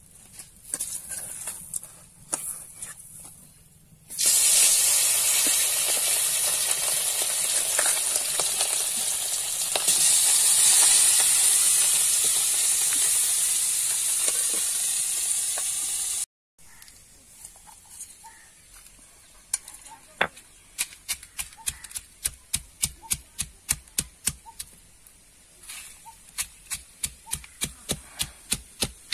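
Fish frying in hot oil in an iron wok: a loud, steady sizzle starts suddenly about four seconds in and runs about twelve seconds before cutting off. Then a hand-held stone pounds on a stone grinding slab, sharp even knocks about twice a second, crushing dried red chillies, garlic and onion.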